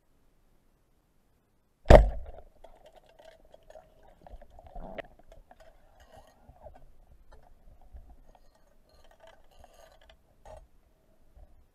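Speargun fired underwater: one sharp, loud crack about two seconds in, followed by faint crackling and a few clicks while the shaft and line are out in the water.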